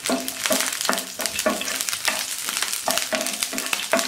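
Green chili pieces frying in hot oil in a pan, sizzling, while they are stirred with strokes scraping the pan about twice a second.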